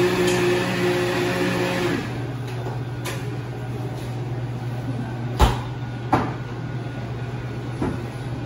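A steady low machine hum with a few sharp knocks, the loudest about five and a half seconds in; for the first two seconds a steady tone rides over the hum.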